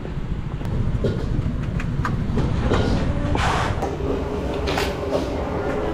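Busy restaurant background noise: a steady low rumble with scattered clinks and clatter, and a few short hissing bursts, the loudest about three and a half seconds in.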